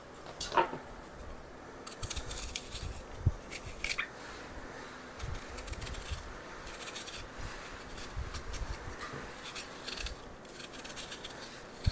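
Small kitchen knife peeling an apple by hand: a run of short, crisp scraping strokes as the blade shaves off the skin, starting about two seconds in. A brief squeak about half a second in.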